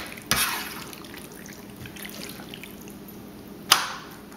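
A serving spoon scooping thick, saucy penne Alfredo out of a skillet and tapping it into a foil loaf pan: a wet clatter a moment in, then a sharp tap of the spoon against the foil pan near the end.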